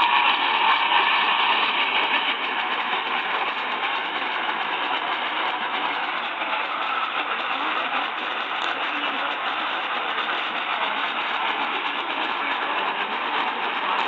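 AM radio tuned to a weak, distant station, giving a steady wash of static and noise with the station's audio buried in it.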